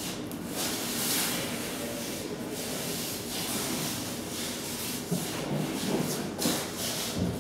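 Paintbrush strokes dragging across the painting surface: a run of scratchy swishes, some louder than others.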